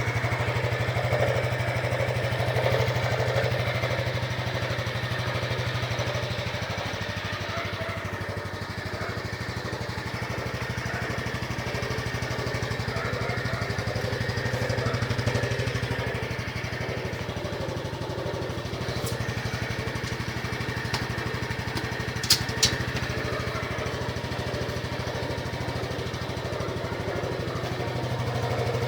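Honda Biz 125 EX single-cylinder four-stroke engine running steadily at idle, carrying the faint coming-and-going catching noise the owner believes is abnormal. Two sharp clicks close together about two thirds of the way through.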